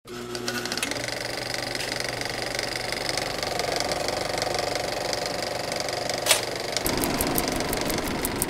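Old film projector sound effect: a steady mechanical whir and rattle, with one sharp pop about six seconds in.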